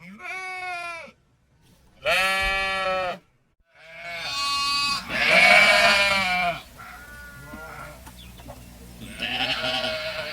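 Sheep bleating again and again: about five loud bleats of roughly a second each in the first seven seconds, softer calls after that, and another loud bleat starting near the end.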